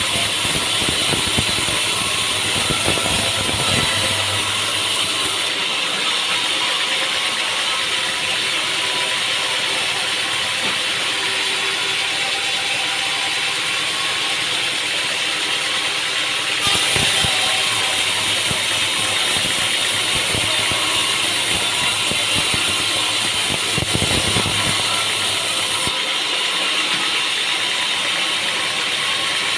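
Sawmill machinery running with a steady mechanical clatter and scattered knocks.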